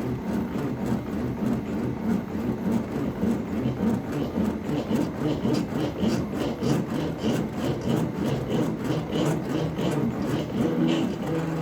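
A CNC router cutting into a wooden board: a steady motor tone with a fast, regular ticking over it.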